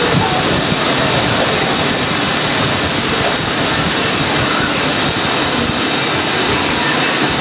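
Recorded jet airliner engine sound played by the model airport display: a steady, even rush with a thin high whine.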